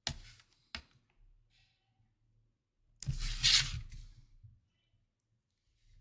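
A plastic set square and pencil handled on drawing paper: two short clicks near the start, then a rustling scrape lasting about a second and a half from about three seconds in, as the set square is slid across the sheet.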